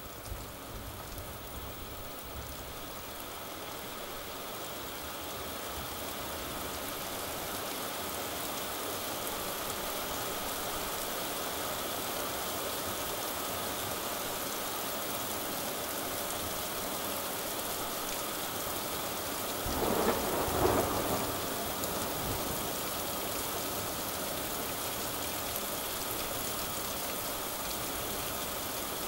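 Steady heavy rain hissing, growing heavier over the first several seconds. About twenty seconds in, a short peal of thunder rumbles for a second or two over the rain.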